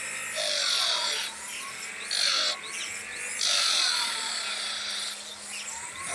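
Homemade disc sander driven by a sewing machine motor through a pulley and belt, running with a steady hum while wood is pressed against its spinning sandpaper disc in repeated passes, each giving a coarse rasp. The three longest passes start about half a second, two seconds and three and a half seconds in.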